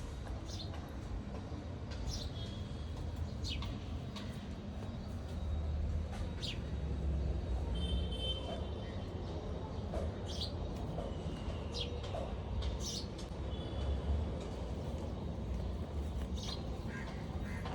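Small birds chirping: short, high chirps every second or two, over a steady low rumble.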